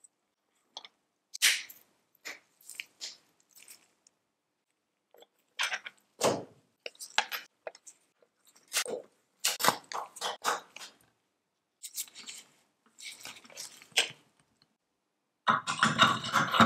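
Thin metal wire arms being hooked into a small metal toy carousel hub: irregular light metallic clicks, taps and scrapes. A louder, denser burst of rattling near the end as the assembled arm head is handled over the tower.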